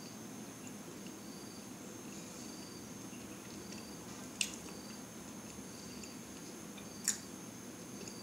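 A person quietly chewing soft garlic cheese bread and pulling it apart by hand, with two sharp clicks from the mouth or the tearing crust, about four seconds in and again about seven seconds in.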